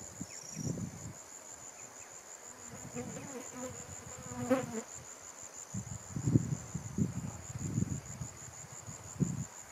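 An insect's steady, high-pitched, rapidly pulsing trill, with low gusts of wind buffeting the microphone now and then.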